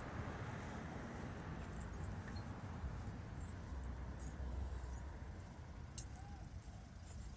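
Road traffic ambience recorded on a smartphone's own microphone: a steady low rumble of passing cars, with a faint short chirp about six seconds in.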